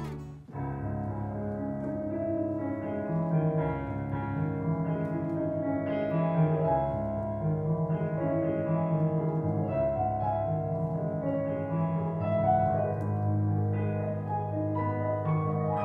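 Solo piano music starting about half a second in: a ballet-class accompaniment for pliés at the barre.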